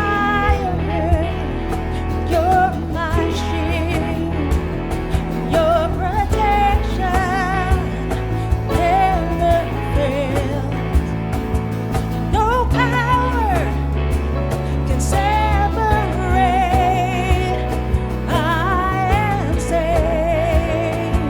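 Live worship music: a singer's voice, held and wavering in pitch, over a band with steady bass and drum hits.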